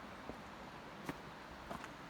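Footsteps on a trail: a few irregular steps, the one about a second in the loudest, over a faint steady hiss.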